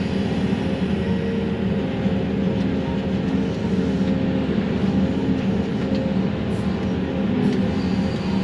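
Excavator diesel engine and hydraulics running steadily with a low hum, heard from inside the operator's cab while the machine loads brush with its grapple.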